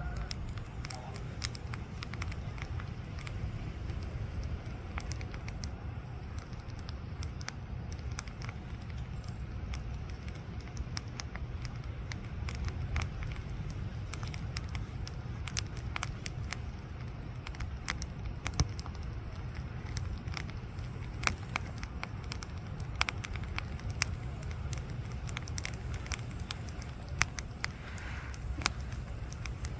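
Campfire crackling, with scattered sharp pops and snaps, some louder than others, over a steady low rumble.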